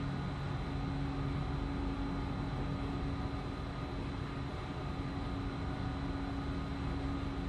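Interior noise of an electric S-Bahn commuter train running at speed: a steady rolling rumble from the wheels on the track, with a steady electric hum and a faint high tone over it.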